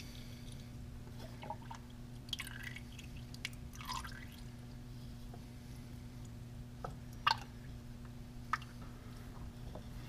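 Hydraulic oil dripping irregularly from a John Deere 1025R's partly unscrewed hydraulic filter as it drains, the flow slowed to scattered drips, over a steady low hum.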